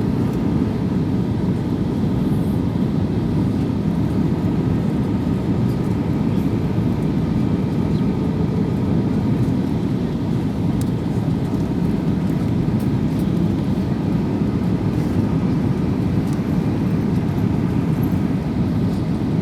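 Steady cabin noise inside an Airbus A320neo airliner: a low, even rumble of engines and airflow with a faint steady hum on top.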